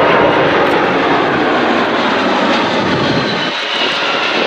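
Jet noise from a Boeing C-17 Globemaster III's four Pratt & Whitney F117 turbofan engines during a high-speed pass: a loud, steady rush. The deep part of the sound fades about three and a half seconds in, and a thin high whine comes up near the end.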